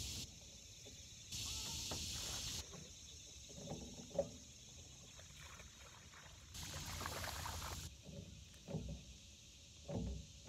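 A hooked bass being fought and reeled in to a bass boat, with short splashes and knocks as it thrashes and is swung aboard near the end; the sharpest one comes about four seconds in. Between them, on-and-off blocks of a steady high hiss, each about a second long.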